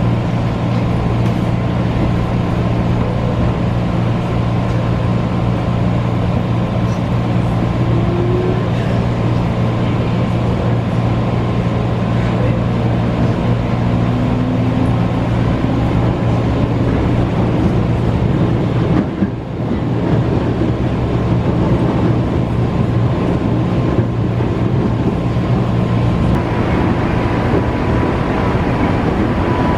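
Local train running, a steady rumble with a low hum and a faint high tone throughout; the sound drops out briefly about two-thirds of the way through.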